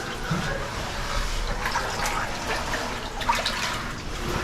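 Steady rush of running water in a cave passage, with scattered short scrapes and rustles.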